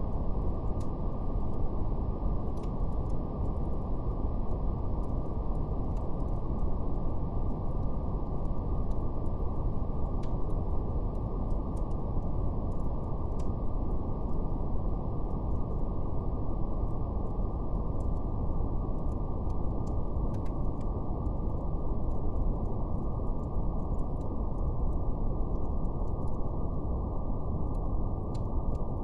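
Steady brown noise, a deep, even rumbling hiss with no highs, with a faint, irregular crackle of a wood fire over it.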